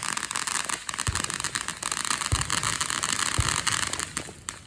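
Ground firework fountain spraying sparks: a steady hiss with dense crackling that dies away near the end.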